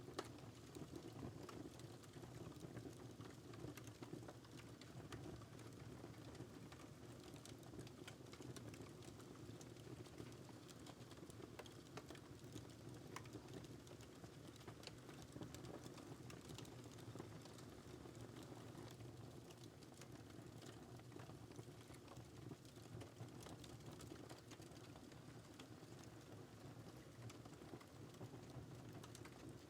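Faint wood fire in a fireplace, crackling steadily with many small, irregular pops and snaps.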